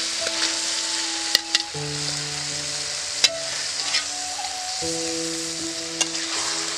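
Chicken liver sizzling as it fries in hot masala in a kadai, with a few sharp clicks of the spatula against the pan as it is stirred. Soft background music with long held chords plays underneath.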